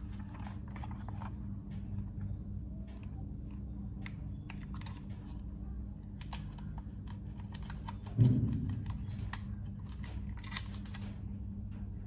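Small plastic clicks and taps from handling a toy RC helicopter's plastic transmitter and its battery compartment, with one louder thump about eight seconds in, over a steady low hum.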